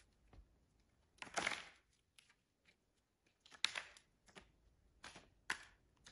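A magician's hands handling a playing card: a short rustle about a second in, then a few sharp snaps at uneven intervals.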